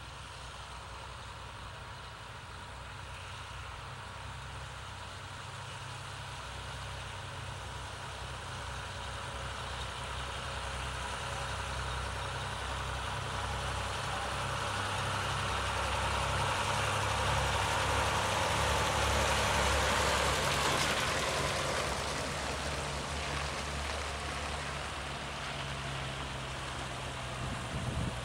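Farm tractor engines running as tractors drive past one after another. The sound grows louder to a peak about two-thirds of the way through, then fades a little.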